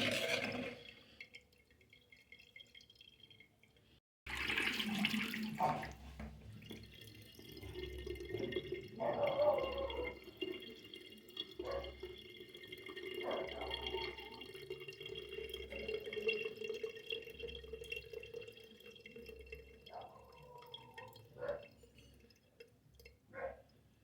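Water dripping and trickling, with scattered louder drips and splashes. The sound cuts out briefly about four seconds in.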